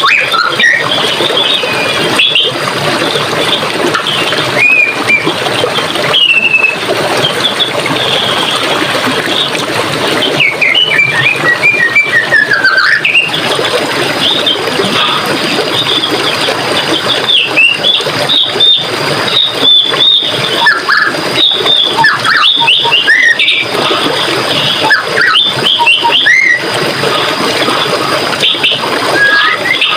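Forest stream running steadily, with many birds singing over it: quick chirps and whistled phrases throughout, and a thin steady high tone underneath.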